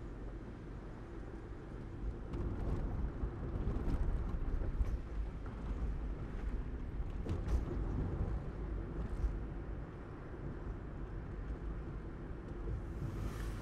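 A car driving along a street: a steady low rumble of road and engine noise, with a few light knocks and a brief rushing swell near the end.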